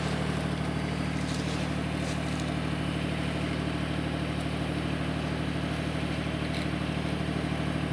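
John Deere 755 compact tractor's three-cylinder diesel engine running at a steady speed.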